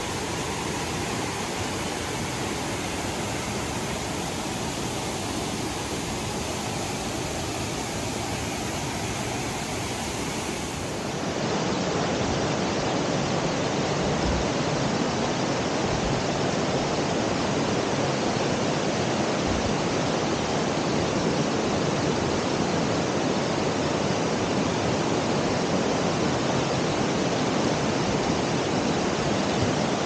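Steady rush of water from a waterfall, becoming louder and fuller about eleven seconds in.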